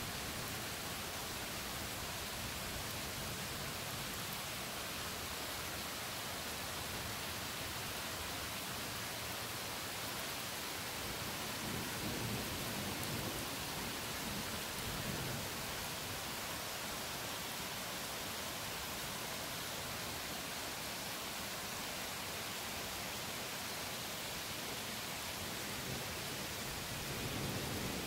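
Steady rain falling in a thunderstorm. Low rumbles of thunder swell about twelve and fifteen seconds in, and another builds near the end.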